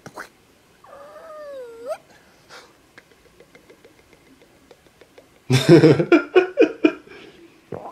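A man imitating a cat's meow with his mouth: one sliding, wavering call about a second in. Then, about five and a half seconds in, a loud burst of a man laughing.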